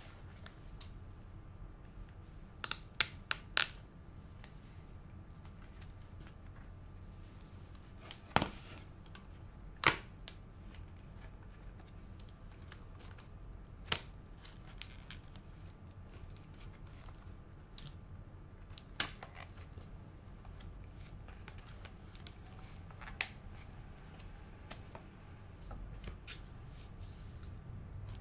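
Sharp plastic clicks and clacks of a clear iPad case being handled and the 12.9-inch iPad Pro pressed into its frame until it snaps in: a quick cluster of three or four clicks, then single clicks every few seconds, over a faint steady low hum.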